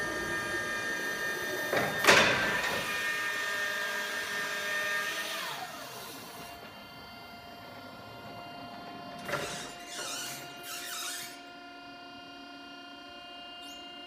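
Cat E6000 electric forklift's hydraulic pump motor whining steadily as the mast raises the forks, then gliding down to a lower steady tone about five and a half seconds in. Short hissing bursts cut in, the loudest about two seconds in and a few more around ten seconds in.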